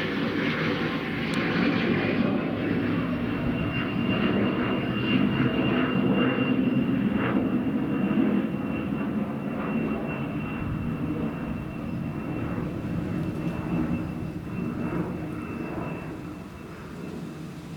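Cessna Citation 560XL business jet climbing out after takeoff, its twin turbofans giving a loud rumble with a steady high-pitched whine held over it. The whine is the strange engine noise the observer had not heard from a jet before. The sound fades as the jet moves away.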